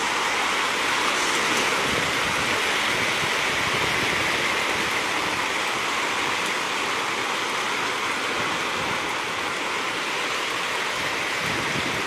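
Steady rush of sea surf washing on a beach.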